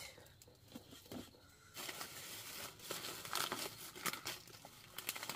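Irregular crinkling and rustling of something being handled, sparse at first and busier from about two seconds in.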